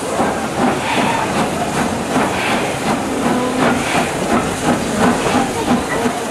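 Steam-hauled train running, heard from an open carriage window: a steady hiss of steam over the noise of the moving train, with a regular beat.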